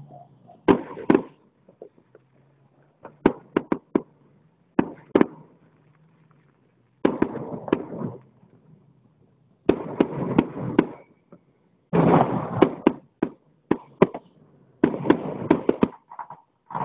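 Aerial fireworks going off in a run of about seven volleys, each a cluster of sharp bangs and crackling pops. The volleys come every one to three seconds, and the later ones are longer and denser.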